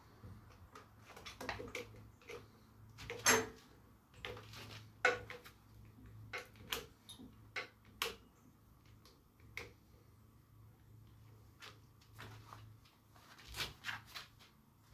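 Scattered clicks and knocks of a homemade Kydex press being handled and its clamp levers worked, with one louder clack about three seconds in.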